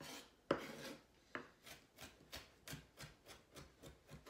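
Kitchen knife chopping onion finely on a wooden cutting board: a steady run of short knocks, about three a second, after a louder knock about half a second in.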